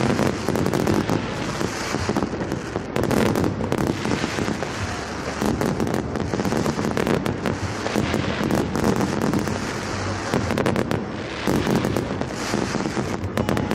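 Fireworks going off: a dense, continuous crackle of many small bangs packed closely together.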